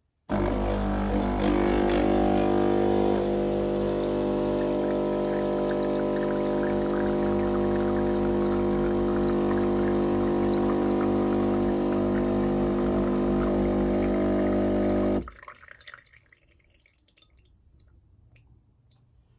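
De'Longhi espresso machine's vibration pump buzzing steadily as it pushes water through the portafilter for an espresso shot, with liquid trickling and dripping. The pump cuts off suddenly about fifteen seconds in. Water is leaking around the portafilter, which the owner puts down to having bought the wrong size.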